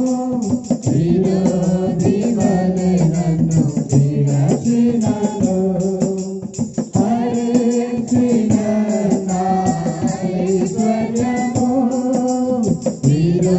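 A group of voices singing a worship song together, with a quick, steady shaken percussion beat like a tambourine keeping time.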